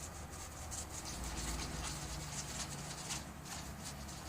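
Faint, repeated swishing of a paintbrush working gold lacquer onto a wooden picture frame, over a low hum.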